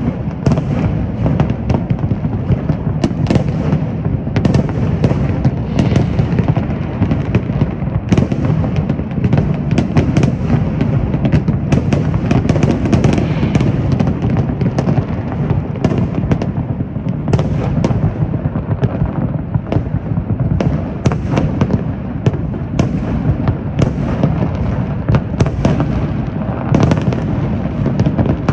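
Large fireworks display at full barrage: many aerial shells bursting in quick, overlapping bangs over a continuous low rumble.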